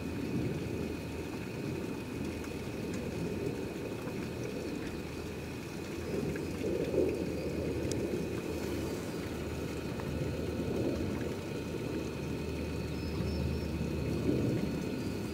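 Steady low rumbling background noise with faint steady high tones above it.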